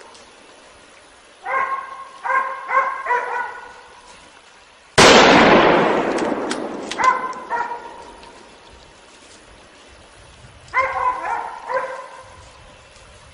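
A dog barking in short runs of several barks, broken about five seconds in by a single loud gunshot whose report echoes away over a couple of seconds; the barking starts again twice afterwards.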